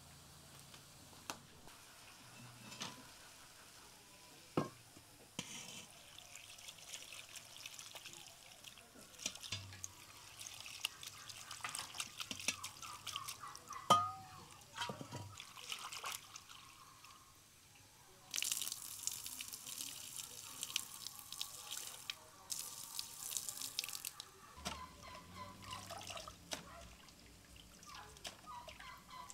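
Water running from a clay jar's spout into a steel bowl of chopped lettuce, splashing as the lettuce is rinsed. It runs in two longer stretches with a short break between them, with a few light clinks of the bowl.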